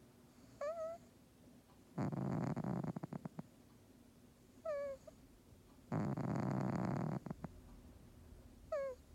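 Domestic cat snoring in its sleep, loud: two rough, rattling snores about four seconds apart. A short squeaky whistle comes between them, one about a second before each snore and a third near the end.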